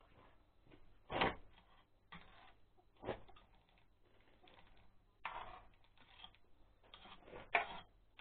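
Irregular clinks and knocks of metal hand tools and parts being handled at a walk-behind tractor's greasy gearbox, scattered over several seconds, with the sharpest knocks about a second in and near the end.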